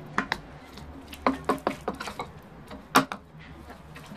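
Metal spoon stirring thickening clear glue slime in a glass bowl, with a series of scrapes and clinks against the glass; the sharpest knock comes about three seconds in.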